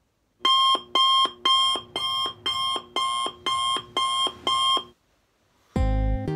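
Alarm beeping: nine identical electronic tones, about two a second, which stop about five seconds in. A loud plucked note follows near the end, the start of guitar music.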